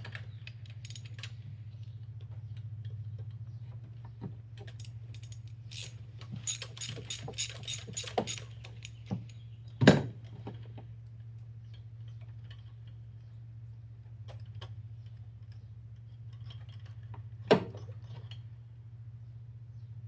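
Ratchet with a 5/8-inch spark plug socket and extension working a spark plug out of a 3.2L V6: a run of quick metallic clicks and clinks, then two louder metallic knocks, one about halfway through and one near the end, over a steady low hum.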